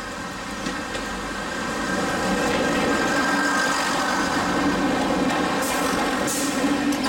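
Diesel multiple unit approaching and passing close by, its diesel engines running under power, growing louder over the first two seconds and staying loud as the carriages go past.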